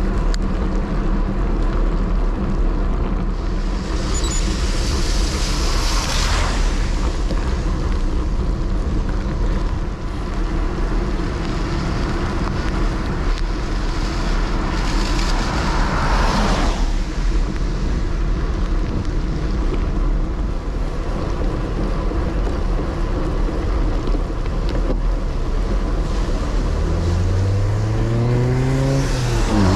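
Wind rumbling on a bicycle-mounted camera microphone, with tyre hiss on a rain-soaked road while riding in heavy rain. Vehicles pass twice, about four to six seconds in and again around sixteen seconds, each a swelling rush of tyres on wet tarmac, and near the end an engine note rises in pitch.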